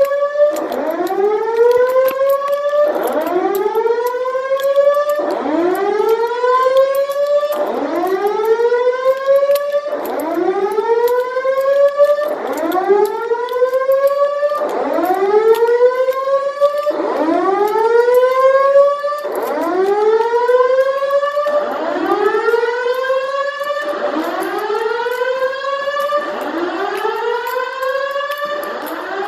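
Simplex voice-evacuation fire alarm system sounding its evacuation whoop tone: a rising siren sweep repeated about every two seconds, the signal for all occupants to evacuate.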